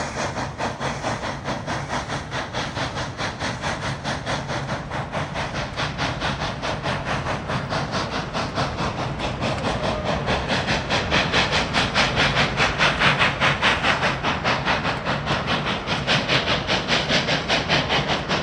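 Steam locomotive working along, its exhaust beating out fast, even chuffs about four to five a second, growing louder toward the middle and later part.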